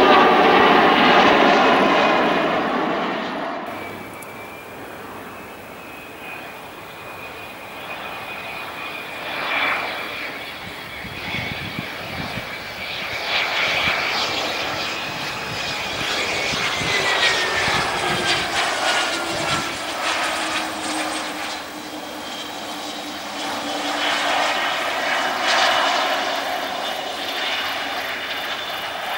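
Airbus A340 jet engines at takeoff power for the first few seconds, cut off abruptly. Then a twin-engine business jet lands and rolls out on the runway, its engines whining with steady high tones; one of them drops in pitch as the engines spool down.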